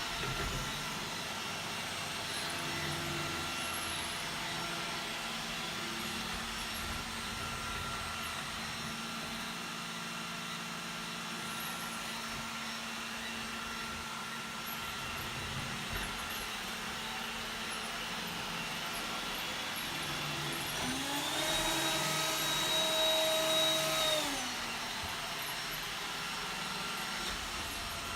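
iRobot Roomba 980 robot vacuum running, its motors and brushes giving a steady hum. About two-thirds of the way through, its motor speeds up with a rising whine, runs louder for about three seconds, then winds back down.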